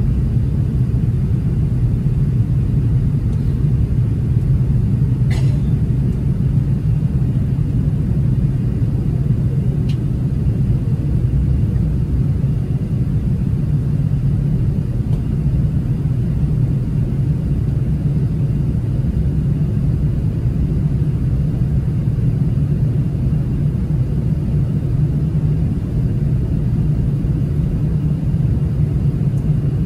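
Steady low cabin rumble inside an Airbus A380-800 in its climb just after takeoff: engine and airflow noise heard from a passenger seat, with a faint click about five seconds in.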